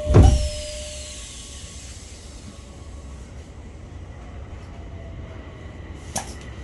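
Odakyu 3000-series commuter train's doors shutting with a heavy thud just as the door chime ends, then a low steady hum from the standing train. About six seconds in there is a sharp clack, and a steady high tone sets in.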